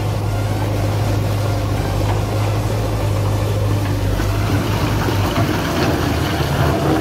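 JCB 3DX backhoe loader's diesel engine running steadily under load, with stone rubble scraping and clattering as the front bucket pushes it, the clatter heavier in the second half.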